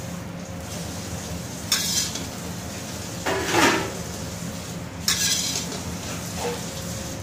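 A metal spatula knocking and scraping against a stainless steel tray and pan of cooked rice: a clink about a second and a half in, a louder scrape in the middle and another ringing clink near five seconds, over a steady low hum.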